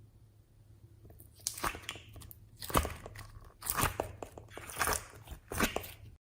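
Slime being worked by hand, crackling and squishing in about five separate pulses from about a second in.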